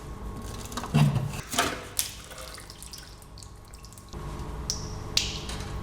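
Leftover engine oil pouring and dripping out of a Mazda RX-8's 13B rotary engine as it is taken apart, with a few short knocks in the first two seconds. A low steady hum comes in about four seconds in.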